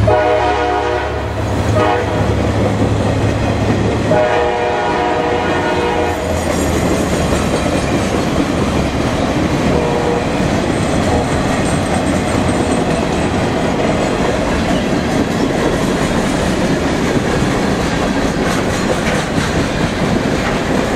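Freight cars rolling past at speed, a steady rumble with clickety-clack of the wheels over the rail joints. A train horn blows twice in the first six seconds, each blast about two seconds long.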